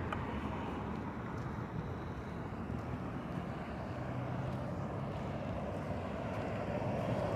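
Steady outdoor background rumble, even throughout, with no distinct events.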